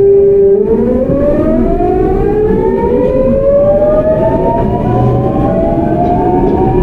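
GEC Alsthom GTO-VVVF inverter of a Seoul Line 8 8000 series train whining as the train accelerates under power: a steady tone that, about half a second in, starts to climb, with several tones rising together.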